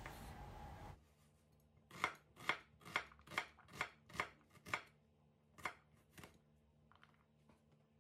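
Kitchen knife dicing an onion on a wooden cutting board. The blade strikes the board in a run of about seven knocks, a little over two a second, then twice more, fainter, after a short pause.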